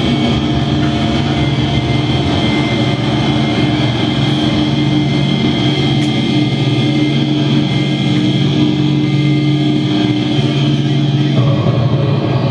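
Live electronic drone music from a performer's tabletop electronics rig: a loud, dense, unbroken wall of held tones over hiss, shifting slightly near the end.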